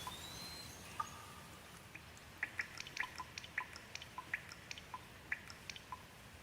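Rain dripping: single water drops plinking several times a second, each a short pitched tick, denser from about two seconds in, over a soft steady hiss of rain.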